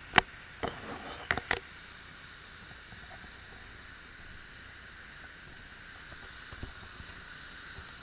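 Steady rushing hiss of a waterfall falling into a pool. In the first second and a half there are a few sharp knocks of footsteps on stony gravel.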